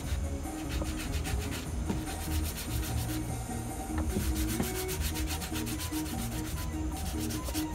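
Quick, rhythmic rubbing and scraping strokes on a small wooden knife handle as it is shaped and smoothed by hand.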